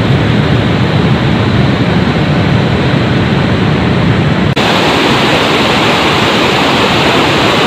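Loud, steady rush of a rocky mountain river's white-water rapids and small waterfalls. A little over halfway through, the sound changes abruptly at a cut and becomes brighter and hissier.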